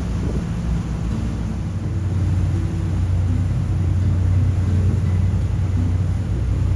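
Boat engine running with a steady low hum over the noise of the crossing.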